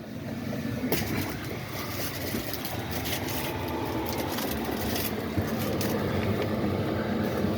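Diesel air parking heater running: a steady blower and burner noise with a low hum, a few short clicks over it.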